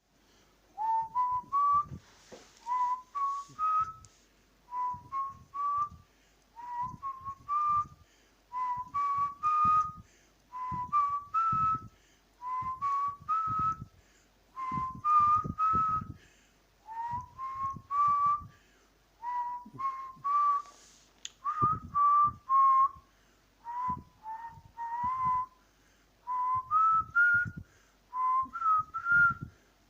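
A person whistling short phrases of three or four brief notes that step upward in pitch, repeated about every two seconds with short pauses between.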